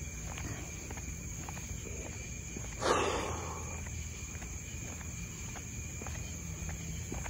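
Night-time insects keeping up a steady high drone, with faint footsteps. About three seconds in, a short, loud rustling burst fades over most of a second.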